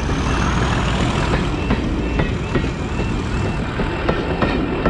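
Railway locomotive running close by: a steady heavy rumble with a short high tick repeating about twice a second.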